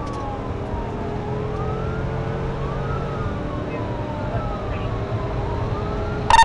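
Police patrol car's siren wailing in slow rising and falling sweeps over steady low road noise as the car accelerates hard. A short, loud, sharp burst of tone cuts in just before the end.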